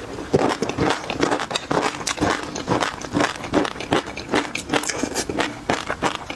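Close-miked chewing of a mouthful of peanut-sauce-coated food: a dense run of quick clicks and smacks, several a second.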